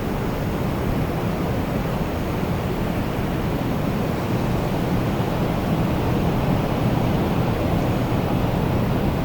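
Wind storm: a steady, deep rush of strong wind that swells slightly about four seconds in.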